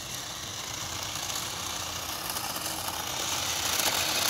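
Toy RC car's small electric motor whirring and its tyres rolling on asphalt with a light rattle, getting steadily louder.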